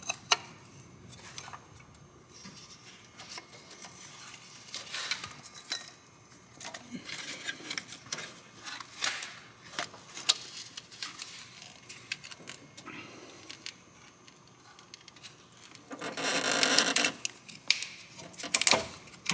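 Scattered light clicks, clinks and scrapes of hands and a tensioner tool working a ribbed accessory drive belt onto its pulleys. A louder, harsher noise lasts about a second near the end.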